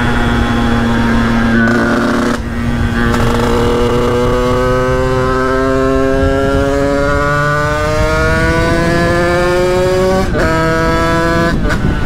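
Sherco 50cc supermoto's two-stroke engine, fitted with a Stage6 R/T kit, pulling on the road. There is a brief break about two seconds in as it shifts up, then the pitch climbs steadily for about seven seconds under acceleration, and there is another short break and shift near the end.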